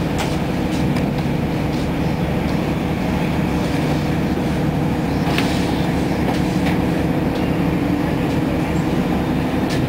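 Interior drone of a 2012 Nova Bus LFS city bus with a Cummins ISL9 diesel engine, heard from inside the cabin, running steadily as the bus crawls at walking pace, with a few light rattles.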